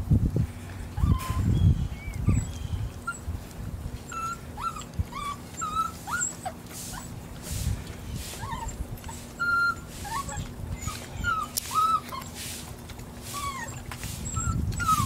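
Rottweiler puppies whimpering and whining in many short, separate, squeaky calls that bend up and down in pitch. A faint steady low hum runs underneath.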